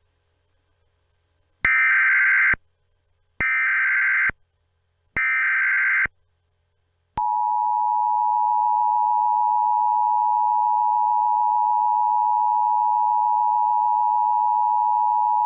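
Emergency Alert System tones: three bursts of the SAME digital header, each about a second long, then the two-tone attention signal, a steady dual tone that starts about seven seconds in and is held to the end. Together they mark the start of an emergency alert.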